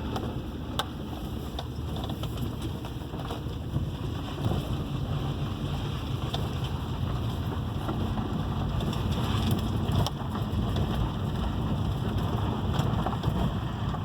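Road and tyre rumble inside the cabin of a 2006 Subaru Forester on the move, a steady low drone with a few faint clicks; no brake squeal is sounding.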